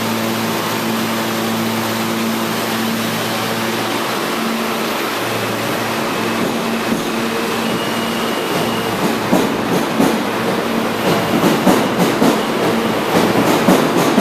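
R160 subway train pulling out of the station: a steady electrical hum from the standing cars, then from about nine seconds in the wheels clack over the rail joints, the clacks coming faster as the train picks up speed.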